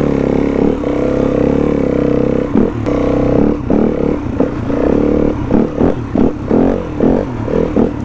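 Yamaha WR 250 four-stroke single-cylinder dirt bike engine under way: a steady pull for the first couple of seconds, then quick on-off blips of the throttle for the rest.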